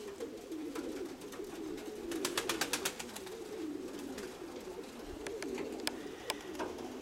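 Several domestic pigeons cooing, their low warbling calls overlapping without a break. A quick run of sharp clicks comes a little over two seconds in.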